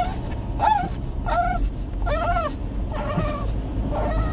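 A 17-year-old Shih Tzu with dementia whining over and over in short rising-and-falling whimpers, about six in a row, like a child's tantrum. A moving car's low rumble runs underneath.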